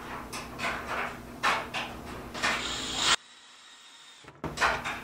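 DeWalt cordless drill driving screws into a cabinet hinge, run in short trigger bursts several times a second. The sound cuts off abruptly about three seconds in and returns briefly near the end.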